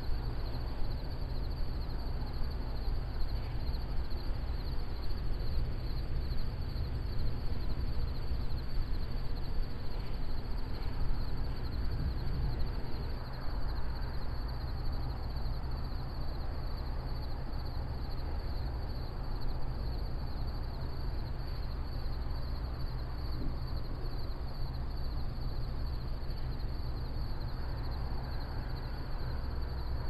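Field insects trilling steadily in a high, finely pulsing band, over a constant low rumble.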